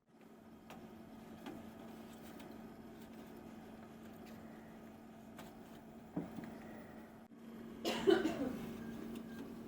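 Light clicks and knocks of hardware being handled, over a steady low hum. A louder, short scraping, cough-like sound comes about eight seconds in.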